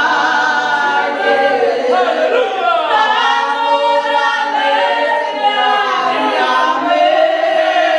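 Two women singing a hymn together without instruments, voices held on long gliding notes.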